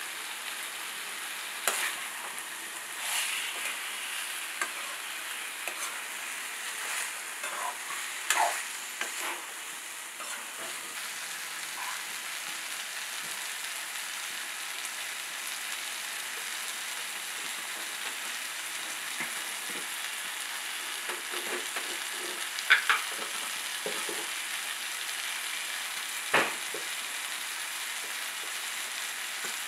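Chicken, onion and tomato sizzling in oil in a metal kadai, with a steady high hiss. A steel spatula stirs and scrapes the pan, giving scattered sharp clinks and scrapes, the loudest two late on.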